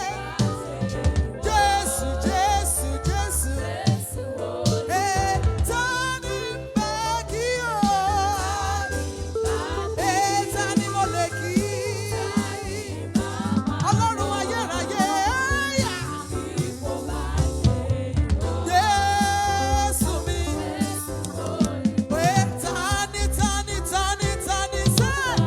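Gospel worship music: a wavering melody line over steady bass and a drum kit.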